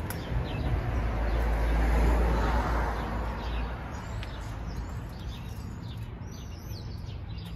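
A swell of rumbling outdoor noise rises to a peak about two seconds in and fades away. Small birds then chirp in short, quick tweets toward the end.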